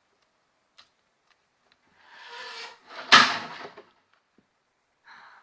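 A picture frame falling and hitting with one sudden, loud bang a little after three seconds in, just after a short rustling noise.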